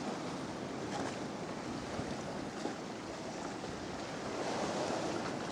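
Sea swell surging and breaking in a rocky gully: a continuous rush of surf, with wind on the microphone, building a little near the end.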